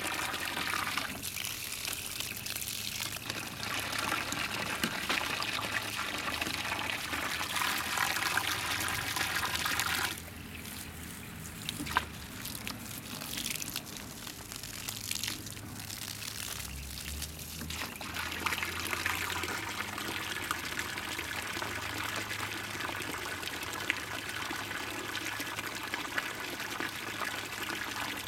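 Water running from a garden hose, a steady trickling and pouring, quieter for a stretch in the middle.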